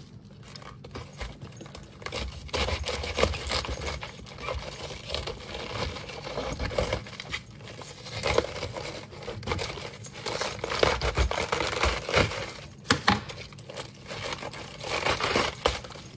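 Kitchen knife cutting into and around the core of a head of green cabbage on a wooden board, the crisp leaves crunching and crackling with a few sharp cracks. Near the end the leaves are pulled and torn apart.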